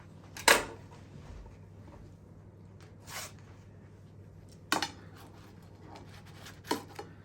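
A blade cutting a pizza into squares, clacking sharply against the tray or plate underneath: a handful of separate knocks with quiet gaps between, the loudest about half a second in.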